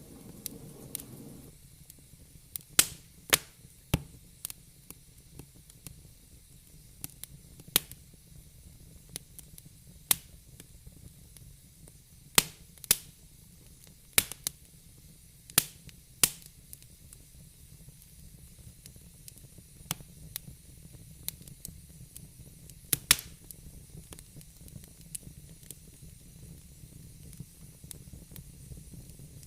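Fire in a fireplace crackling, with irregular sharp pops over a steady low hiss; the loudest pops cluster around 3 seconds in, through the middle, and once more near the end.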